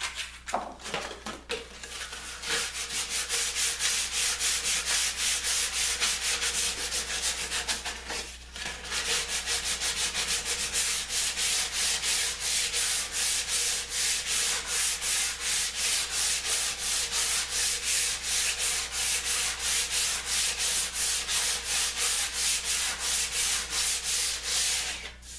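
Sandpaper rubbed by hand back and forth on the end of a bent-laminated wooden half-ring, in quick even strokes of about two a second, with a brief pause about eight seconds in.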